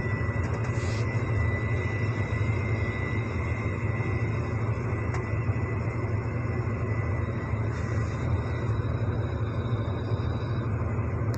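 Heavy-equipment diesel engine running steadily with a low, even rumble, a thin high whine over it that fades out about eight seconds in.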